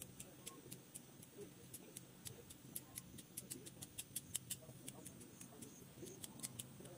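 Hand pruning shears snipping shrub branches: faint, sharp clicks coming irregularly, several a second.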